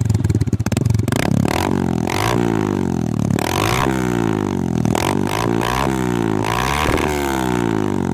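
Suzuki Gixxer motorcycle engine with a custom-made aftermarket silencer, revved over and over, its pitch climbing and falling back about once a second.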